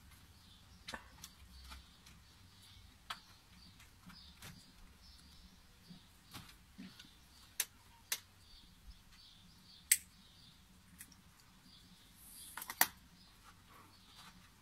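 Husky biting and mouthing at a plastic hydrant-shaped garden sprinkler: scattered sharp clicks and taps, a few louder snaps, and a short hiss of spraying water near the end.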